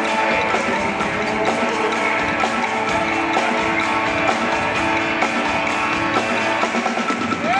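Rock-style music with a steady beat and held chords.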